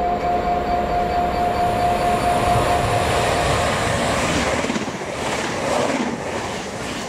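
Heathrow Express Class 332 electric multiple unit approaching and running through the station: a steady whine that stops a little past halfway, then a loud rush of air and rhythmic wheel clatter as the carriages pass.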